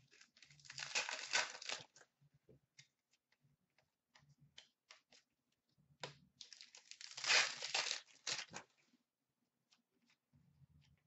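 Upper Deck hockey card pack wrappers being torn open and crinkled in two bursts, about half a second in and again about six seconds in, with light clicks of cards being handled in between.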